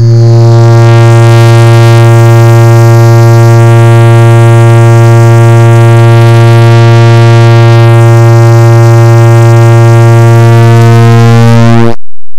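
Clock ticks sped up so far that they merge into a loud, steady low buzz with many overtones, holding one pitch and then cutting off abruptly near the end.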